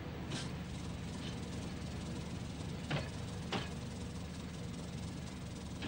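Gardner diesel engine of a County Donegal Railways railcar running steadily at low speed, with a background hiss. Two sharp knocks come about three seconds in, half a second apart.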